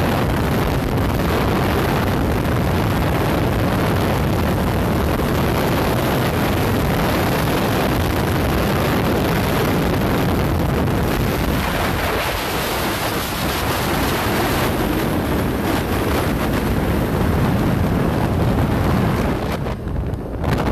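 Loud, steady wind rush on the microphone of a phone held by a rider at speed on a motorcycle, mixed with road and vehicle noise. It eases slightly near the end.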